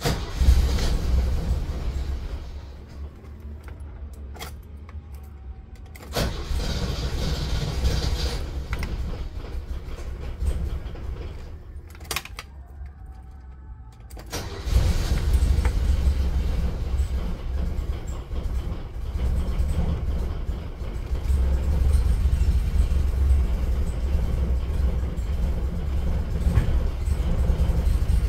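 Mercedes-Benz W460 GE 280's straight-six petrol engine starting from cold: it runs in uneven surges over the first half, with a few sharp clicks, then settles into a steady, louder idle from about halfway in.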